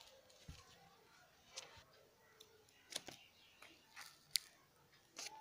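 Faint handling noise: scattered small clicks and taps, roughly one a second, with one sharper click about four seconds in, against near silence.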